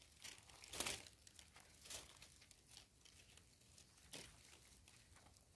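Faint scraping and rustling of dry, crumbly soil as a gloved hand digs into it with the fingers, in a few short scrapes, the loudest about a second in.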